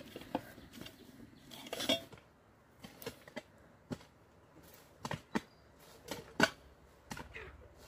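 Hard objects being handled: about a dozen short, separate clinks and knocks at irregular intervals, with quiet between them.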